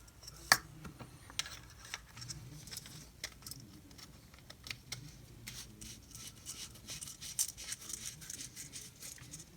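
Scattered small clicks, taps and light rustling of hands handling small objects, with a sharper click about half a second in.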